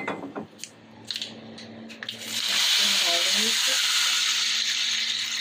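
Hot tadka, oil tempered with mustard seeds and red chili powder, sizzling loudly as it is poured from a small ladle onto the kadhi. A few clicks come first, and the steady sizzle starts about two seconds in.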